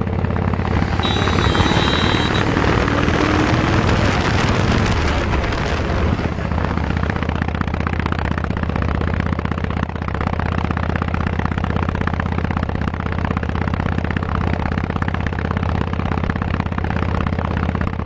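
Harley-Davidson Street Rod 750's liquid-cooled Revolution X V-twin running through its exhaust. It is louder and rougher for the first few seconds, then settles into a steady idle with a fast, even pulse.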